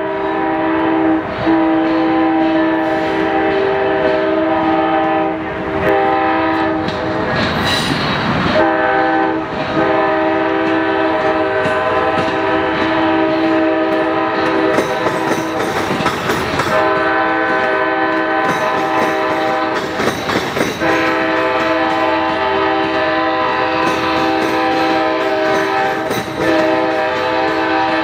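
Amtrak Texas Eagle locomotive's air horn blowing a horn show: long held chords broken by short gaps, the horn sounding almost without pause. Several brief noisy rushes, the loudest about eight seconds in, come from the passing train.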